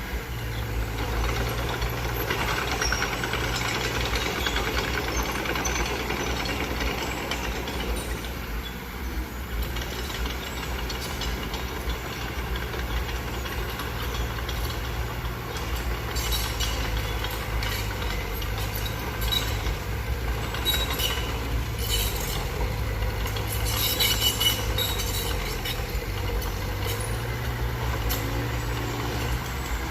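Small Mitsubishi BD2F crawler bulldozer's diesel engine running steadily under load. About halfway through a run of sharp metallic clinks and clanks comes in and lasts for several seconds.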